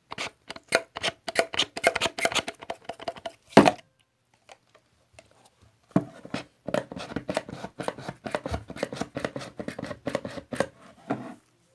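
Rapid tapping and clicking, many quick taps a second, with one louder knock a little over three seconds in, a pause of about two seconds, then another long run of dense tapping.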